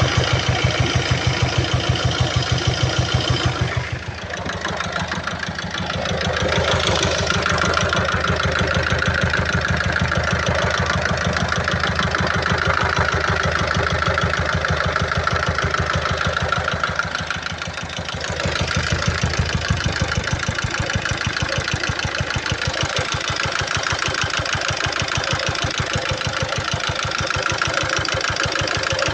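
Peugeot 1.6 HDi four-cylinder turbodiesel idling with an even, rhythmic knock; the knocking is the fault the van's engine is shown for. The sound dips briefly twice.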